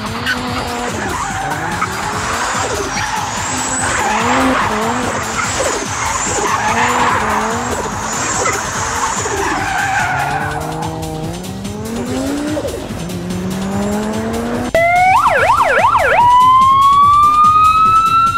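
Turbocharged Audi quattro five-cylinder revving hard, rising and falling again and again, over the squeal and hiss of spinning tyres in a burnout. About ten seconds in the tyre noise fades and the engine climbs through rising revs. About fifteen seconds in there is a sudden, louder siren: a fast warbling yelp that turns into a long rising wail.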